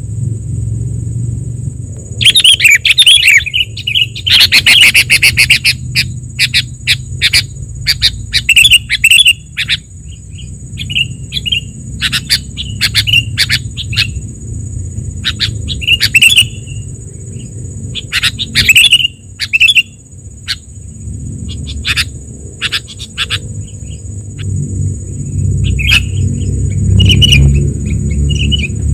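Sooty-headed bulbul (kutilang) lure recording: busy, chattering bursts of sharp chirps and warbles, densest in the first third, then scattered single chirps. A steady low rumble and a steady high-pitched hum run underneath.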